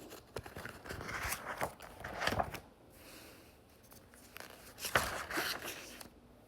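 Paper pages of a notebook rustling and scraping as they are turned, with two louder bursts of page handling.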